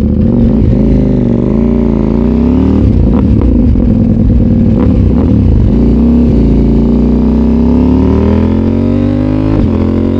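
CFMOTO 800MT's parallel-twin engine through a Yoshimura full-system exhaust with no catalytic converter, loud and bassy. The revs waver at first, then climb steadily for several seconds before dropping near the end.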